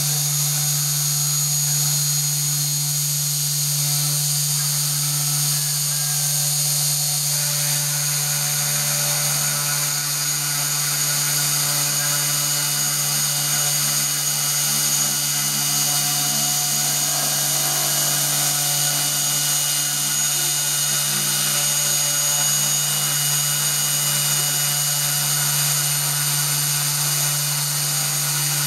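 CNC 3018 desktop router milling MDF: the spindle motor's steady whine with a small end mill cutting the board, running without a break as the machine traces the part.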